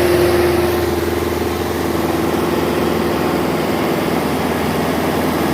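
Engine idling steadily, with a strong droning tone over its low rumble that fades over the first couple of seconds. The engine's turbocharger is failing.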